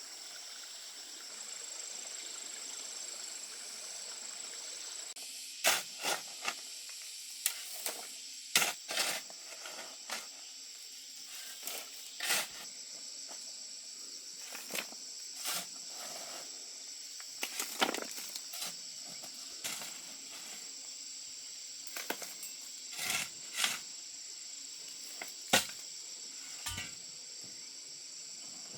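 Steady high-pitched insect chirring, with irregular sharp knocks and clatters starting about five seconds in.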